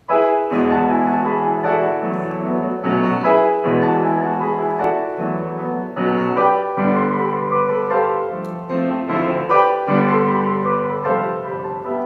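Grand piano playing a chordal introduction, notes struck and left ringing, the music dying away near the end.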